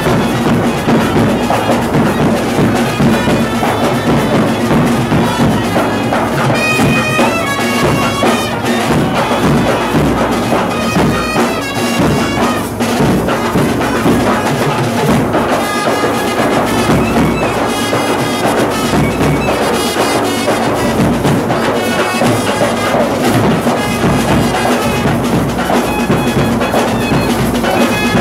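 Live street band playing fast kuthu dance music: a clarinet and a trumpet carry a wavering, reedy melody over a steady beat of side drums.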